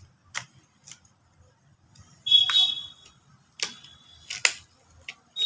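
Knife tapping and scraping against a plate while slicing through a pizza: a series of sharp clicks, with a short high squeal of the blade dragging on the plate about two seconds in and another near the end.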